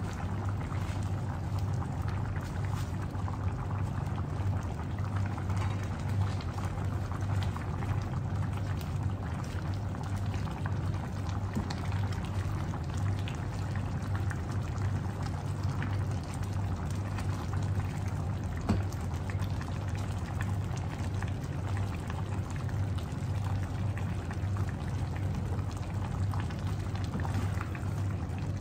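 Crab and prawn stew in coconut cream bubbling steadily in a pan on a gas stove, over a steady low hum. From about halfway through, a wooden spatula stirs through it, with one sharp knock about two-thirds of the way in.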